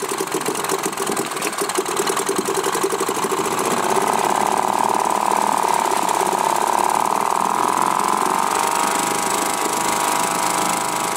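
British Seagull two-stroke outboard motor running with its propeller in a tank of water. About four seconds in it picks up speed and grows a little louder and steadier as the propeller churns the water to froth.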